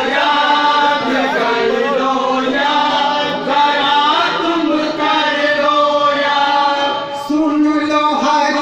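A man chanting a devotional kalam into a microphone in a melodic, sung line, holding a long note near the end.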